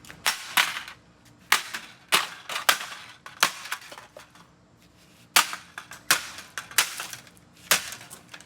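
A series of about ten sharp, hard blows striking the plastic body of an RC boat being smashed, spaced unevenly, with a pause of about two seconds in the middle.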